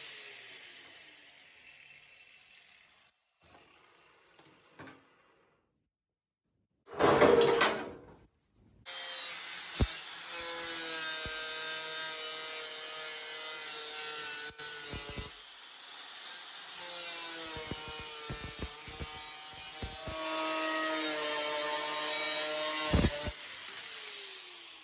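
Power tool cutting the sheet steel of a Model T door, a whine with several pitches that sags and recovers with the load. It comes in two long runs of about six seconds each, after a short loud burst.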